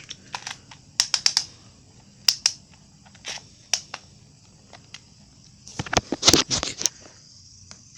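Toy spinning tops skittering and clattering on a hard surface: a scattered series of sharp clicks and knocks, with a busier cluster of knocks about six seconds in as they tip over and stop.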